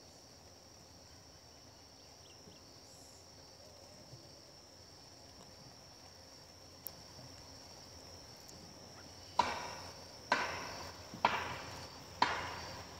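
Four sharp knocks about a second apart in the last few seconds, each with a short ringing tail, as a hard part is tapped by hand. Under them a faint, steady, high insect drone like crickets.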